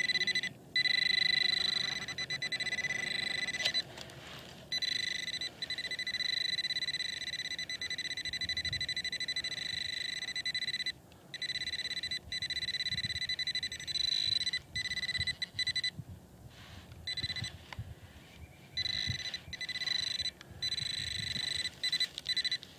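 White's Bullseye TRX pinpointer sounding a steady high tone over a metal target in the soil. The tone breaks off briefly again and again as the probe moves. Soft scraping of gloved hands working the loose dirt lies underneath. The tone marks a buried coin close by.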